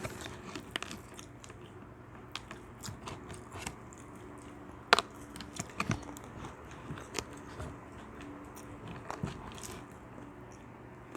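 People eating, with bites, chewing and occasional crunches, one sharp crunch about halfway through the loudest.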